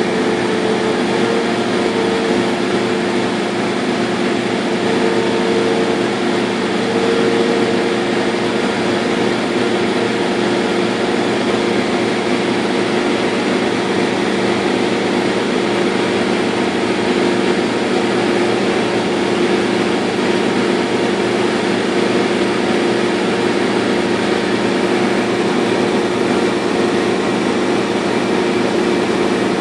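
Laser cutter running as it cuts half-inch birch: a steady machine hum and rush of air, with a higher tone that comes and goes during the first several seconds.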